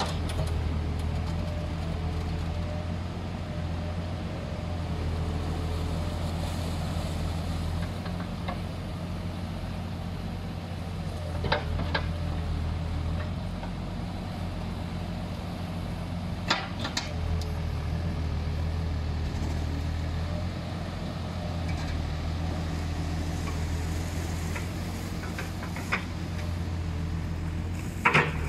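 Komatsu backhoe loader's diesel engine running steadily as it digs wet beach sand, with a few sharp clanks now and then.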